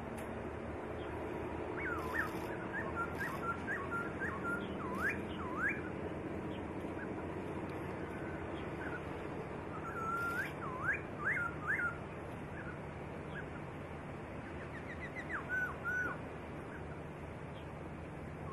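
A songbird singing clear whistled phrases of fast rising and falling sweeping notes, in three bursts: about two seconds in, around ten seconds in, and near fifteen seconds in. A steady low hum runs underneath.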